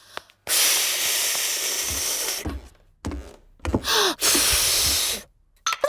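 Two long breathy rushes of blown air, each lasting about two seconds, from a cartoon pig pursing her lips and blowing but not managing to whistle. A few soft low thumps come between the two.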